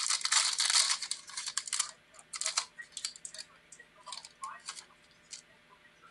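Foil wrapper of a Select football card pack crinkling as it is torn open, a dense crackle for about the first two seconds, then a few scattered crinkles and clicks as the cards are handled.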